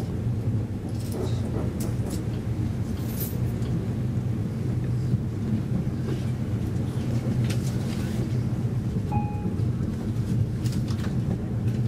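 Steady low rumble of a VR intercity train running at speed, heard from inside the passenger car, with faint scattered clicks and rattles over it.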